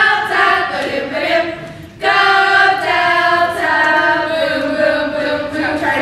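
A group of young women singing together in unison, unaccompanied. There is a brief break about two seconds in, then they come back in together.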